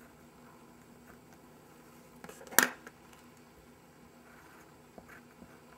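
Coloured pencil writing and sketching on a small piece of note card on a tabletop, faint and scratchy, with one sharp tap on the table about two and a half seconds in.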